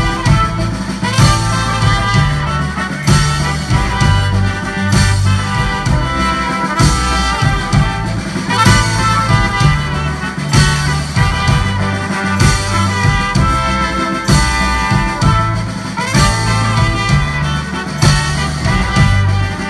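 Live band playing an instrumental passage led by trumpets and a trombone over drums, with a steady recurring beat.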